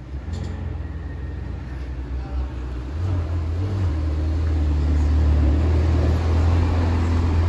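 Ferrari Portofino's twin-turbo V8 rumbling at low speed as the car rolls past at close range, growing louder about three seconds in and then holding steady.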